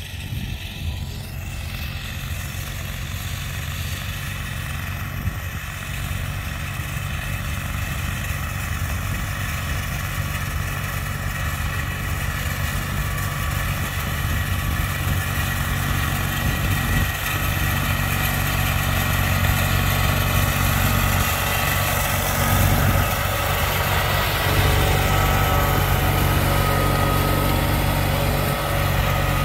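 Allis-Chalmers garden tractor's engine running steadily while it pulls a disc harrow through the dirt, growing louder as it comes closer.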